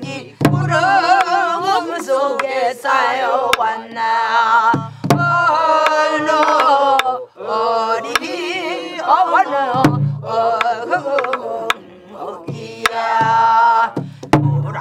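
A woman singing a Namdo folk song in full voice with heavy wavering vibrato, accompanied by strokes on a buk barrel drum that keep the rhythm.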